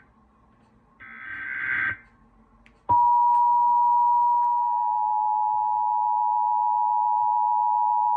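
About a second in comes a short burst of screeching digital data tones from an Emergency Alert System SAME header. About three seconds in, the EAS attention signal starts abruptly: a loud, steady two-tone alert tone that holds without a break.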